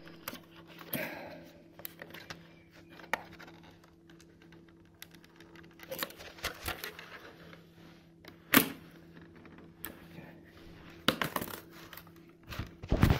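Scattered clicks, taps and small knocks of hard plastic being handled and pried: a laptop's plastic top cover being worked at while a missed screw still holds it down. A sharp knock about eight and a half seconds in is the loudest, with a cluster of clicks near the end, over a faint steady hum.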